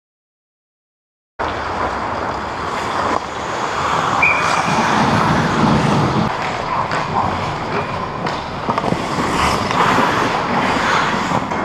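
Silence for the first second and a half, then the steady noise of an ice hockey game heard from the goal crease: skate blades scraping the ice, with sticks and puck clacking now and then.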